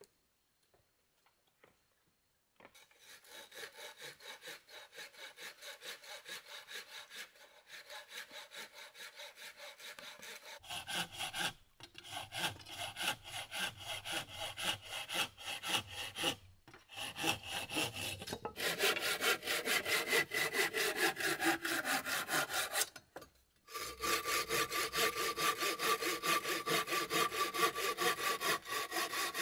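Hand saw cutting through round wooden poles in steady back-and-forth strokes. It starts about two and a half seconds in and stops briefly a few times.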